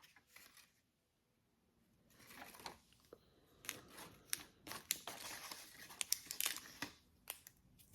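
Small plastic packaging being handled and opened, with faint, irregular crinkling, rustling and sharp little clicks. It starts about two seconds in.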